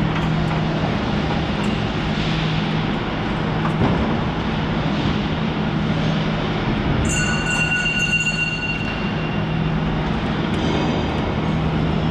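Steady loud noise of industrial plant machinery with a constant low hum. About seven seconds in, a high-pitched whistle-like tone with overtones sounds for about a second and a half.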